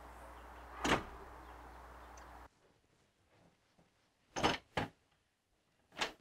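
Door sounds: a steel security door bangs shut about a second in. Then, in a quiet room, two sharp clacks of a door latch and a third as an interior door is opened near the end.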